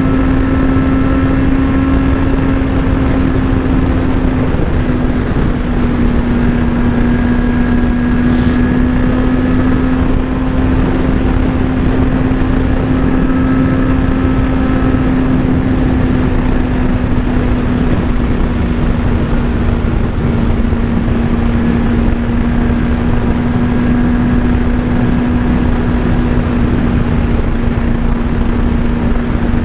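Sport motorcycle engine running at a near-steady cruising speed, its note holding one pitch with only small dips, under a constant rush of wind on the helmet microphone.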